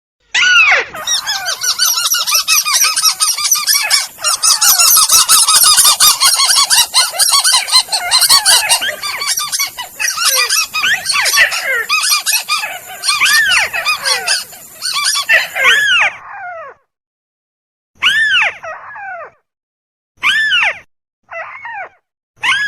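Recorded calls of the crake known as burung tikusan, played as a bird-lure track. Many arched calls overlap in a dense, loud chorus for about sixteen seconds. After a short pause, separate single calls follow a few times near the end.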